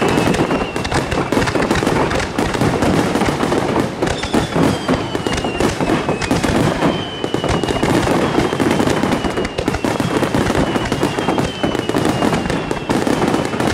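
Fireworks display: a dense, unbroken barrage of bangs and crackling shells, with several whistles that fall slowly in pitch.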